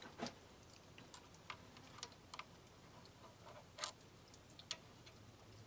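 Faint, scattered metallic clicks of a small socket on a quarter-inch-drive extension and a pin magnet touching metal while a screw is started by hand, about six in all, the sharpest nearly four seconds in.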